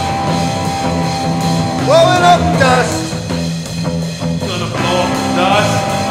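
Rock band music, with electric guitar and bass playing a repeating riff.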